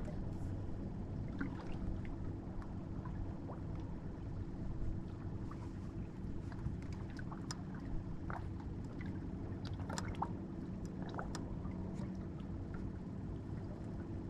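Small waves lapping and slapping against the hull of a fishing boat, with scattered light splashes and ticks over a faint steady low hum.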